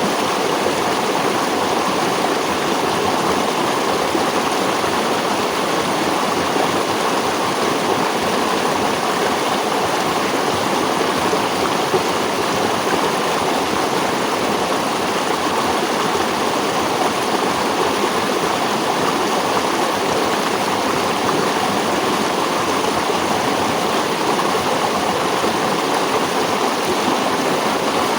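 Flowing water, a steady, even rushing that does not change.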